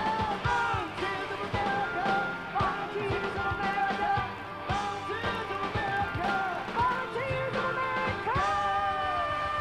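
Live rock band playing a song, with a steady drum beat under sliding, bending melody lines, recorded from the crowd.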